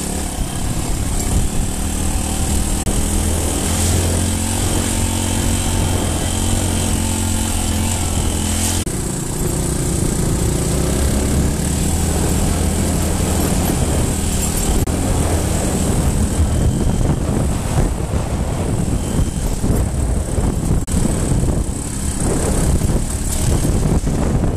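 Motorcycle engine running steadily while riding a gravel dirt road at moderate speed. Its note shifts about nine seconds in, with a brief knock at that moment.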